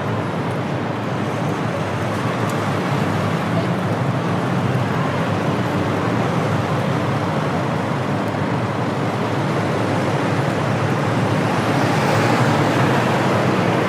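City street ambience: steady road traffic noise from passing vehicles, growing a little louder near the end.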